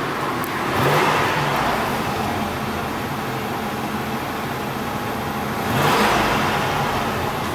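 1978 Mercury Colony Park's 460 big-block V8 running, revved twice: once about a second in and again about six seconds in, settling back between.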